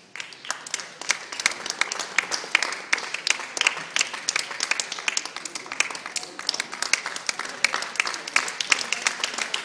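Crowd applauding: clapping breaks out and fills in within about a second, then goes on steadily.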